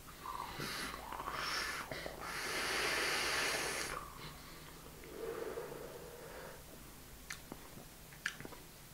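A man vaping an e-cigarette, breathing in and out: short breaths in the first two seconds, then a long steady exhale of vapour from about two to four seconds in, a softer breath around five to six seconds, and a few small clicks near the end.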